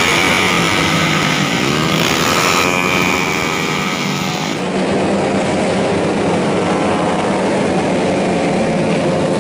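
Several tuned 131cc automatic racing scooters running at high revs, their engine notes rising and falling in pitch as they accelerate and pass.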